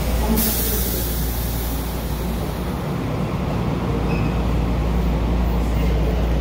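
Steady low hum of an airport people-mover car standing at the platform with its doors open, with a short hiss about half a second in.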